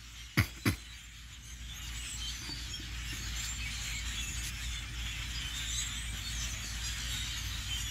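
A large flock of birds perched in bare trees, chattering with many overlapping calls that build gradually in loudness. Two brief sharp sounds come less than a second in.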